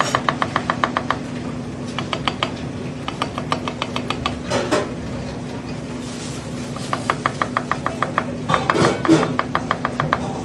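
Chef's knife rapidly chopping garlic on a plastic cutting board: quick runs of blade strikes, about eight a second, broken by short pauses. A steady low hum runs underneath.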